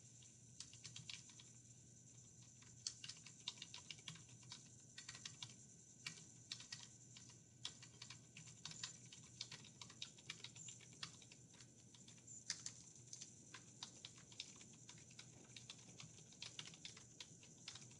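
Faint typing on a computer keyboard: a quick, irregular run of key clicks as a line of text is typed.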